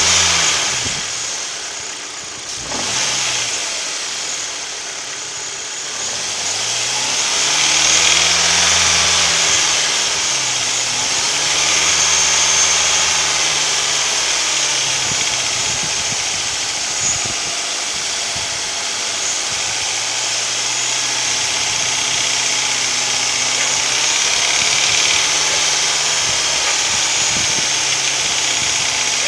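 Hyundai/Kia G4KD 2.0-litre four-cylinder engine blipped up and back down a few times, then settling to a steady idle about halfway through. The owner attributes the engine's knocking and idle vibration to piston knock.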